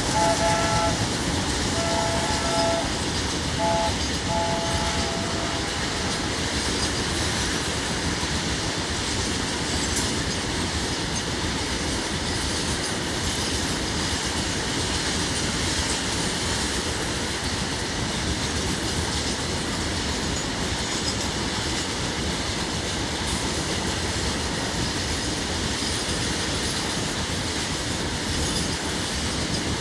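Diesel locomotive horn sounding several short blasts in the first few seconds, then the steady noise of the train running past.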